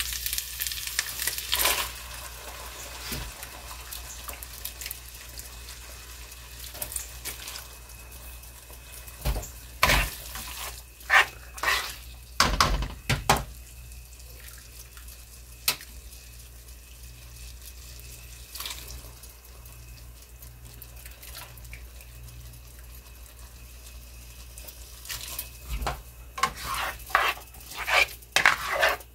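Cooked pinto beans and their liquid being ladled into a pan of frying chorizo: sizzling and wet splashing with a few sharp knocks of the ladle. Near the end comes a quick series of stirring strokes.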